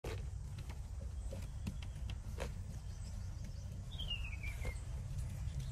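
Outdoor background noise: a steady low rumble with scattered faint clicks, and a single bird call sliding down in pitch about four seconds in.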